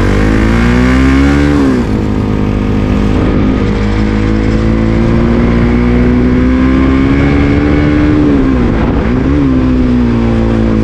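Motorcycle engine pulling away and accelerating, its pitch climbing in each gear and dropping at gear changes, about two seconds in and again around eight seconds.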